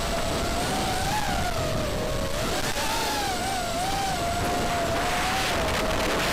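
Electric motors and propellers of a small FPV racing quadcopter whining, the pitch wavering up and down as the throttle changes, over a steady rush of air noise.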